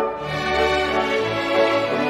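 Orchestral background music with sustained strings and a bass line.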